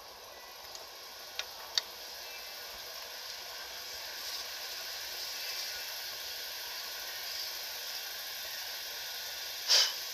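Rear drum brake shoes and their springs being handled by hand: two small metallic clicks about a second and a half in, then a short, loud scrape near the end, over a steady background hiss.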